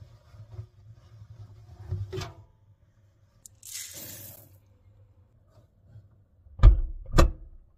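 Small blue laundry beads poured onto clothes in a front-loading washing machine drum, a short rattling hiss about four seconds in, among small knocks of handling. Two loud thumps near the end.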